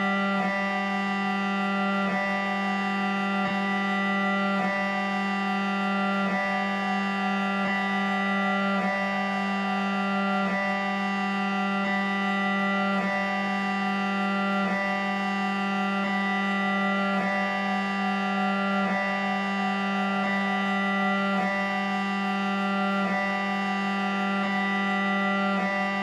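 Layered recordings of MRI scanners played as a drone piece: many steady held tones stacked into a dense chord over a strong low hum, with faint pulses recurring every second and a half or so. The scanner sounds are unprocessed, only added to each other.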